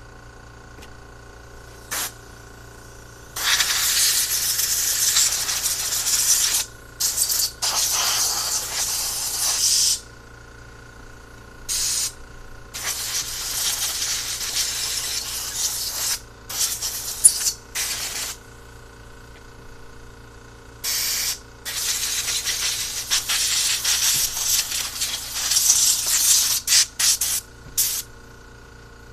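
Compressed-air blow gun hissing in a dozen or so on-off bursts, some brief and some several seconds long, as it blows out a disassembled carburetor.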